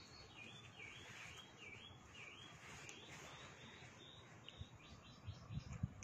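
Faint bird chirping: a quick run of about six short chirps that dip and rise in pitch over the first two seconds, then a few fainter ones. A few soft low thumps near the end.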